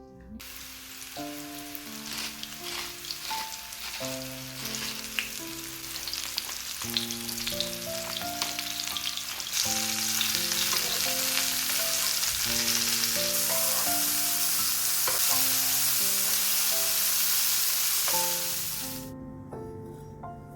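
Food frying in hot oil in a pan, sizzling; the sizzle starts about half a second in, gets louder about halfway through and fades away near the end. Soft background music with held notes plays throughout.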